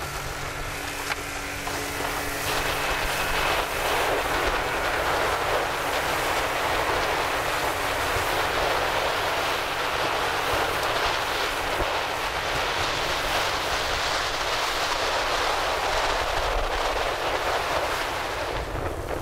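A motorboat underway through choppy water: a steady rush of water and spray along the hull over a low, steady engine hum, with wind on the microphone.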